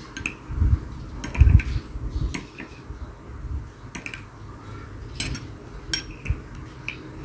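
A spoon clinking and scraping against a container while mashing tamarind in hot water, in irregular sharp clinks about once a second, with a few soft dull knocks in the first couple of seconds as the pulp is pressed.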